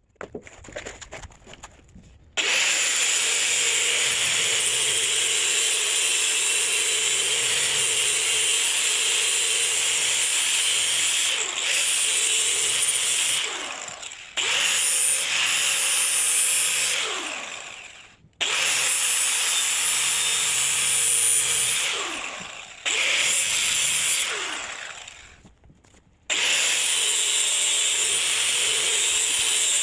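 Power grinder sharpening the steel blades of a brush hog (rotary cutter). It runs in long loud stretches and is let off four times, each time winding down with a falling whine before it is started again.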